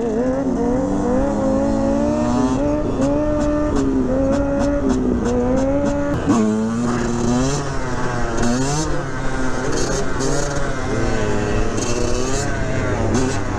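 Kawasaki 636 sport bike's inline-four engine held at high revs for about six seconds, its pitch wavering slightly. About six seconds in the revs drop suddenly, then rise and fall again and again as the throttle is worked.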